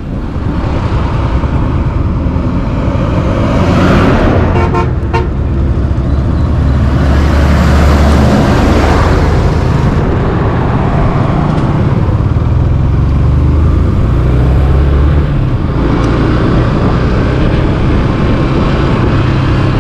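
Yamaha FZ-S V3 motorcycle's single-cylinder engine running while riding, its pitch shifting a few times, with wind rushing over the microphone. A vehicle horn toots a few times briefly about four to five seconds in.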